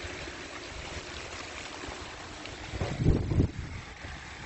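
Steady hiss of light rain with wind buffeting the microphone, and a brief louder low rumble about three seconds in.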